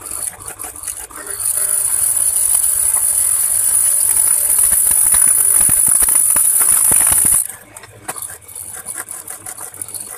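Wood planer machine running, its cutter shaving a wooden board: a loud, steady, high cutting noise starts about a second in and stops about seven seconds in. Around it the machine runs on more quietly, with rattling and clicks.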